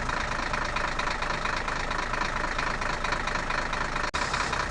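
Steady idling engine sound of a toy JCB backhoe loader, with a rapid knocking rhythm. It drops out very briefly about four seconds in.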